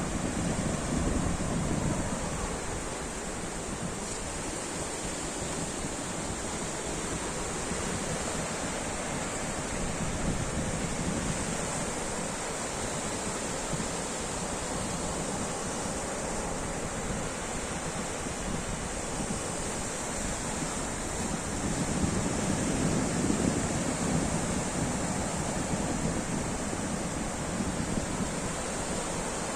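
Ocean waves breaking on a shore, a continuous wash of surf that swells louder at the start and again a little past two thirds of the way through.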